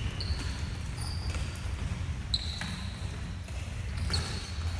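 Athletic shoes squeaking on a wooden gym floor: four short, high squeaks spread through the moment, with a few light knocks of sticks and ball over a low hall rumble.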